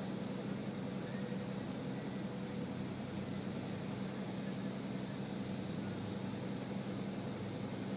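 Diesel engine of a Komatsu PC400 excavator running at a steady speed, a low even hum with no change in pitch.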